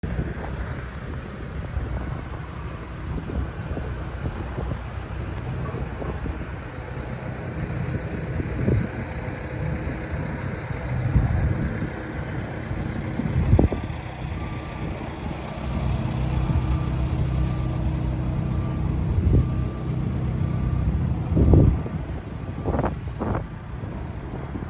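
Heavy yard equipment's diesel engine running steadily. Its back-up alarm beeps in a regular on-off pattern for several seconds past the middle, and there are a few thumps.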